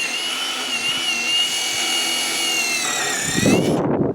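Power drill fitted with a countersink bit, running with a steady high whine. About three seconds in the pitch sags and a rough, louder grinding joins it as the bit cuts pilot holes into the wood blocking, then the drill stops just before the end.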